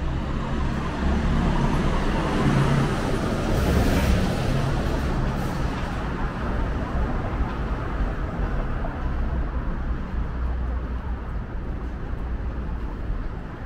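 City street traffic: motor vehicles running and passing, with one passing close and loudest about four seconds in before easing off.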